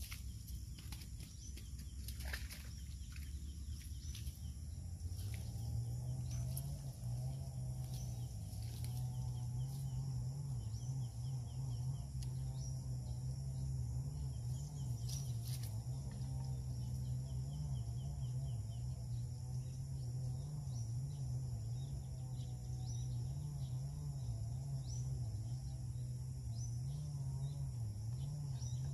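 Outdoor ambience with steady high-pitched insect buzzing, a few sharp clicks near the start, and a low steady hum that comes in about five seconds in and wavers slightly.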